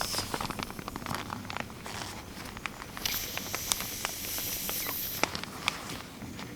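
Footsteps through dense woodland undergrowth: twigs and dry leaves crackling and snapping underfoot in an irregular run of clicks, with a high hiss for about two seconds midway.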